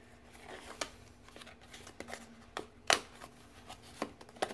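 Small paper and cardboard packages being handled: scattered rustles and light clicks, the loudest a sharp click about three seconds in.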